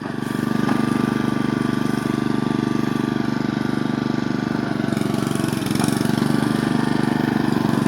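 Small lawn mower engine running, getting louder at the very start and then holding a steady, pulsing run.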